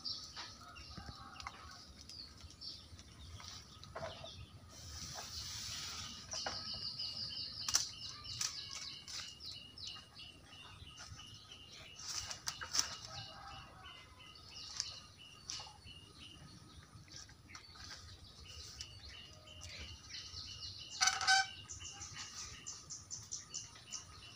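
Bird calls: a long series of short, evenly repeated clipped notes with bursts of rapid high chirps. A few sharp knocks and rustles come from a long pole being pushed up through the tree branches, the loudest about three seconds before the end.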